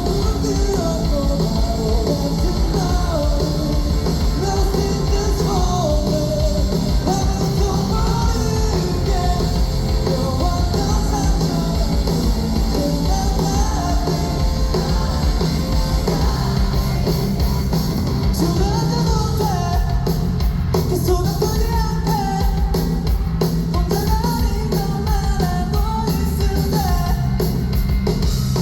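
A rock band playing live, with a lead vocal singing a melody over loud, steady band accompaniment, heard as an amplified concert mix.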